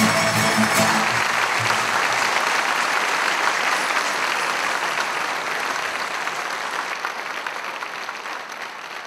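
A plucked-string folk ensemble with double bass ends on its last chord about a second in, and an audience applauds, the applause slowly dying away.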